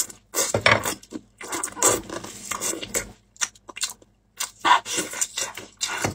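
Close-up eating sounds: chewing and sucking saucy braised ribs off the bone, with plastic-gloved hands rubbing and tearing at the meat. Irregular bursts of noise, with a brief pause just after four seconds in.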